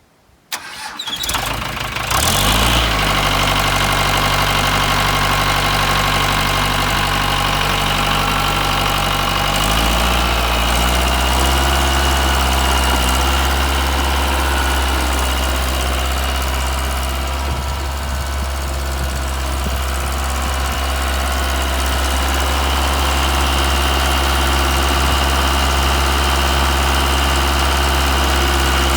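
Mitsubishi diesel engine of a Case DH4B trencher cranking on the starter for about a second and a half, catching, then running at a steady idle; the engine note shifts slightly about ten seconds in.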